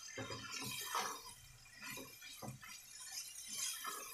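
Spatula stirring a moist chickpea curry in a nonstick pan: irregular wet scrapes and soft clicks of chickpeas against the pan, several a second.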